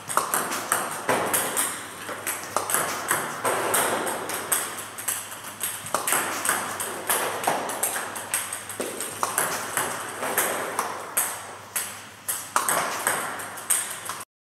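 Ping-pong balls being served with heavy topspin: a quick run of sharp clicks, several a second, as the paddle strikes the ball and the balls bounce on the table and beyond it. The clicks cut off suddenly near the end.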